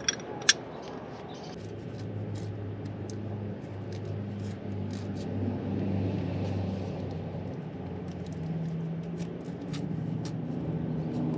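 A low, steady machine hum that grows a little stronger a couple of seconds in. There are two sharp clicks at the very start and faint scattered ticks throughout.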